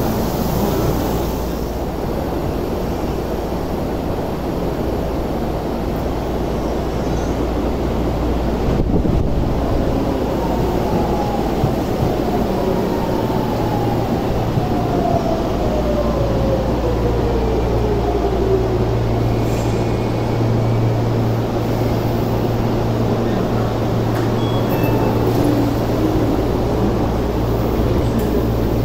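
Electric subway train pulling into an underground platform and braking to a stop. Its motor whine falls steadily in pitch as it slows, over a constant low rumble and hum.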